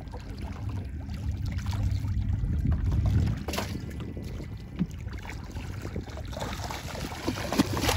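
Wind rumbling on the microphone over water lapping around a small boat. In the last couple of seconds there is louder splashing as a mako shark breaks the surface.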